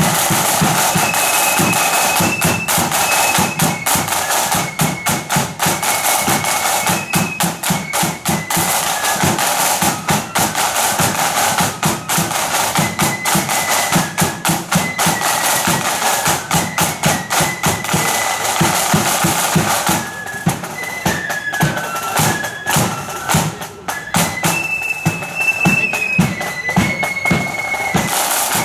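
Marching flute band playing: a high flute melody over rapid snare-drum strokes and a steady bass-drum beat.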